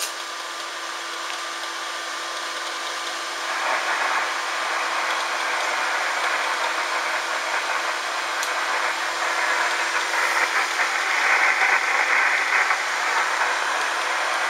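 HF transceiver receiving on SSB with no station answering: a steady hiss of band noise from its speaker, cut off below and above like voice-band audio, with a faint steady tone underneath. The hiss swells a few seconds in and again near the end, and no one is on the frequency.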